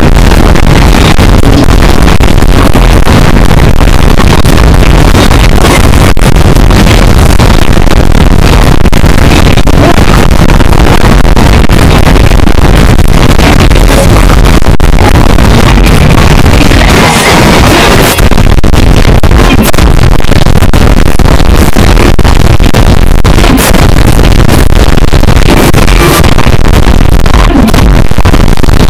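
Fireworks-show music blasting from nearby loudspeakers, overloaded and clipped into a constant distorted noise. The bass is too loud for the camera's microphone.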